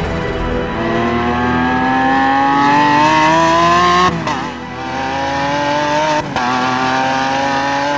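Lamborghini Countach LPI 800-4's naturally aspirated V12 accelerating hard, its pitch climbing steadily. It upshifts twice, about four seconds in and again about six seconds in, each shift a brief drop and dip before the note climbs again.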